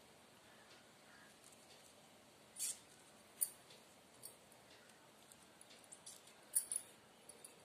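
Faint handling sounds of hand-stringing a flower garland: soft rustles and a few crisp, sharp ticks as petals and thread are worked on a needle, scattered irregularly.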